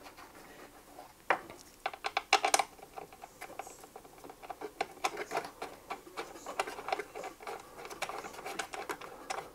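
Rapid metallic clicking, rattling and scraping as the cable of a pistol safe's cable lock is worked through and twisted into its slot inside the safe's metal box, starting about a second in.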